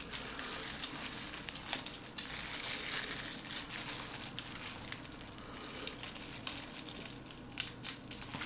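Gloved hands peeling raw soy-sauce-marinated shrimp: wet crackling of shell and plastic gloves as the shrimp is pulled apart. There is a sharper crack about two seconds in and a few more near the end.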